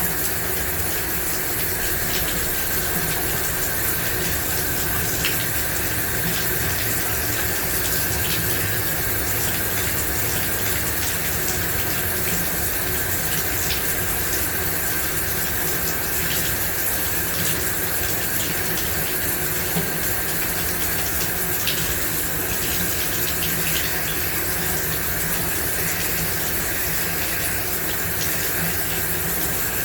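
Shower running steadily, water spraying and splashing in an even hiss, with faint scattered drip-like ticks.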